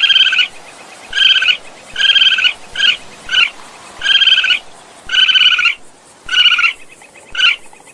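Raccoon calls: a string of about nine short, high, steady-pitched cries, some clipped and some drawn out, with short gaps between them.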